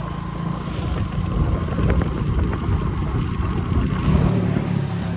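Mini excavator engine running with a steady low rumble; the deepest part of the rumble drops away about four seconds in.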